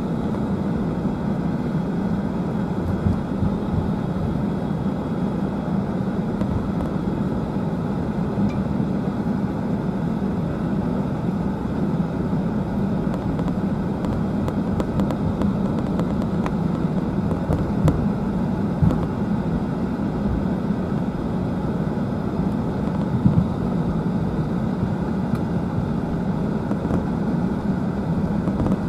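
Cabin noise of a British Airways Airbus A380-841 taxiing after landing, heard from a seat over the wing: a steady low rumble of the Rolls-Royce Trent 900 engines at idle and the rolling undercarriage. A few brief knocks come through, the loudest about two-thirds of the way in.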